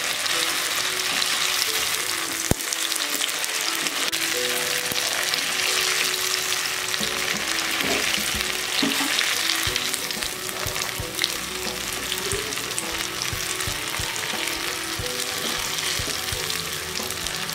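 Batter-coated baby corn deep-frying in hot oil in a kadai: a steady sizzle, with a perforated skimmer stirring through the oil and a few light taps against the pan.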